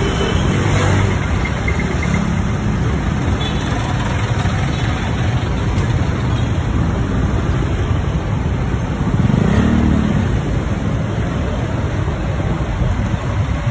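Motorcycle engine running steadily under way, with road and wind noise, heard from the sidecar of a tricycle moving through traffic.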